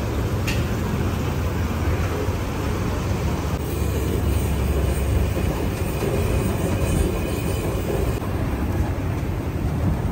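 Steady low rumble of outdoor street background noise, traffic and engines, with no distinct events.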